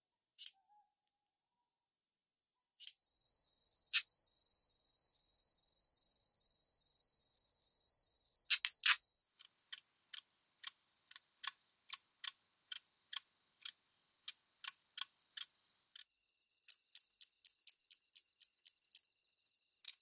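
A run of false katydid (kudamakimodoki) calls, one species after another. First a continuous high buzz with a few loud clicks for about six seconds (Hime-kudamakimodoki). Then sharp clicks about one and a half a second over a faint buzz (Sato-kudamakimodoki, Holochlora japonica), and near the end a fast ticking with quicker clicks (Yama-kudamakimodoki).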